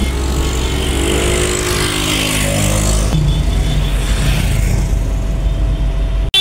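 Vehicle engines running in a slow-moving convoy, with a motorcycle riding close past; an engine's pitch rises and then falls over the first few seconds.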